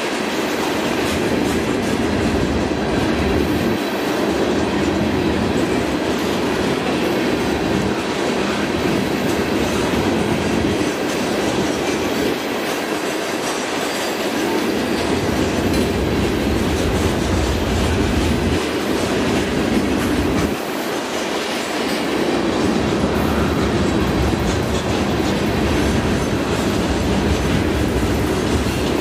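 Freight train with loaded aggregate hopper cars rolling past: a steady noise of steel wheels on rail, its low end swelling and fading every few seconds.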